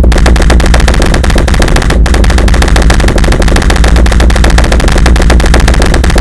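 Loud harsh electronic noise music: a rapid, dense, distorted stutter over a steady heavy bass drone, much like machine-gun fire.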